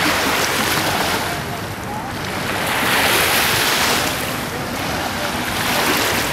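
Small waves washing up onto a sandy beach, a hiss that swells and fades about every three seconds.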